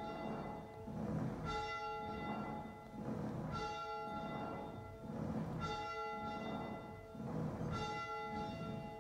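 Church bell tolling slowly, struck about every two seconds, four strokes here, each stroke ringing on with a steady hum of overtones until the next.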